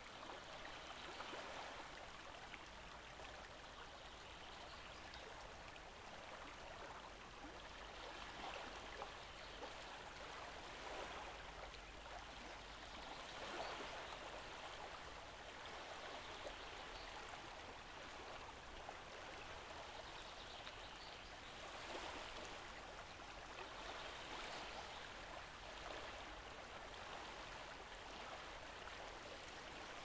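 Faint, steady rush of shallow water at a lake shore, where a small stream runs over sand into the lake and ripples wash in, swelling softly every few seconds.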